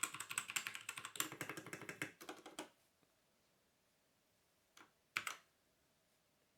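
Keys of a Havit 60% mechanical keyboard with brown switches being pressed in a quick, dense run for about two and a half seconds, then two single key clicks near the end.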